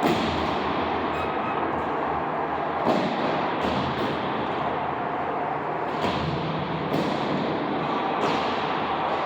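Steady background din of game play, with about six sharp knocks and thuds spread through it, the kind made by sticks and a ball striking.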